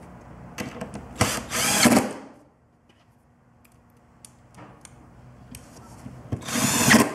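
Cordless 20V drill-driver driving inch-and-a-quarter wood screws into a plywood panel through pre-piloted holes. The motor runs in two short bursts, about a second in and again near the end, with a few small clicks between them.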